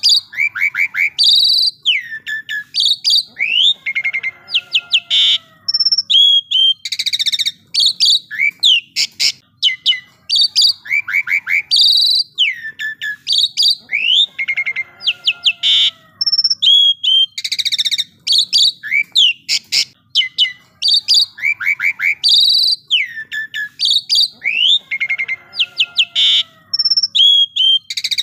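Asian pied starling (jalak suren) singing a loud, varied song of rapid whistles, quick up- and down-sweeping notes and short harsh buzzy phrases, the same run of phrases repeating about every ten seconds in a loop.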